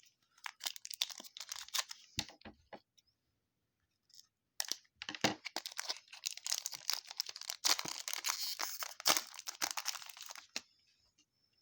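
Foil trading-card pack wrapper being torn open and crinkled by hand: a short run of crackles, a pause, then a longer stretch of dense crinkling that stops about a second before the end.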